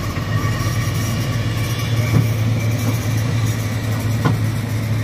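Loaded lorry's diesel engine running steadily as it drives, heard from inside the cab with road noise and a couple of light knocks.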